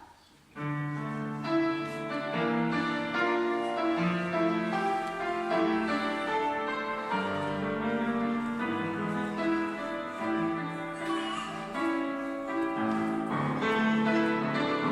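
Piano playing the instrumental introduction to a song, in chords and melody notes, starting about half a second in.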